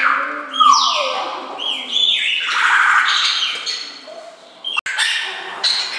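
Several birds calling over one another in an aviary: a run of squawky calls, each sliding down in pitch. The sound cuts out for an instant just before the end.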